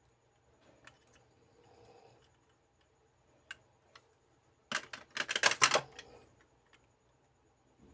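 Small hard-plastic Kyutama capsule toys being handled, with a few light clicks, then a loud burst of rapid plastic clicking and clattering about five seconds in as one capsule is set down and another picked up.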